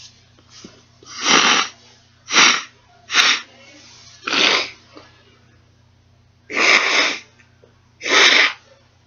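A person sneezing six times in a row, each sneeze a sharp noisy burst, mostly about a second apart with a longer pause before the fifth.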